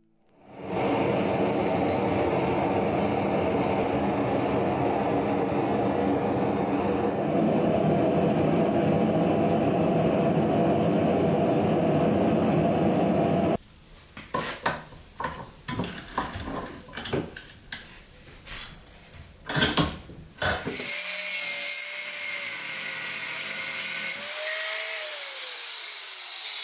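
A loud steady roar for about thirteen seconds, then a scatter of light metallic knocks and clinks as a small brass piece is handled and set in a steel bench vise. After that an angle grinder runs with a steady whine against the brass end cap, and its pitch falls near the end as it winds down.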